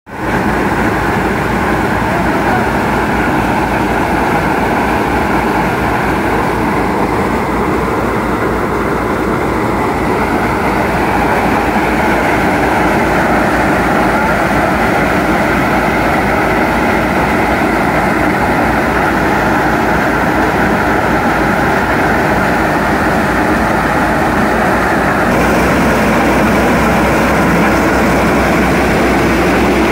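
Tractor-PTO-driven maize sheller running steadily while cobs are fed in, its drum threshing the cobs and kernels rattling out. Under it, the MTZ-50 tractor's diesel engine runs steadily under load.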